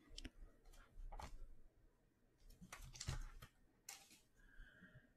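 Faint clicks and soft scrapes of trading cards being handled and slid against one another, in a few short clusters.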